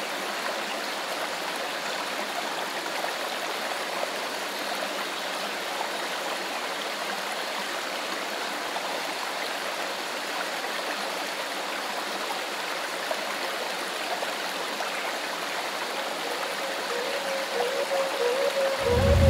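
Steady rush of running water, like a small stream. Music swells in near the end.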